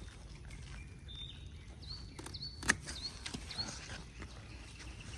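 A bird chirping repeatedly outdoors in short, high calls, over a faint low rumble. A single sharp click about two and a half seconds in is the loudest sound.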